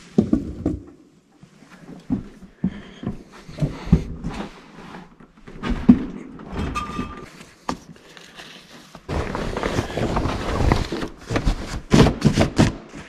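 Irregular thuds, knocks and footsteps on a plywood floor as snowmobiles on wheeled dollies are shifted by hand. From about nine seconds in comes a close, continuous rustle of a fabric snowmobile cover being pulled over a sled.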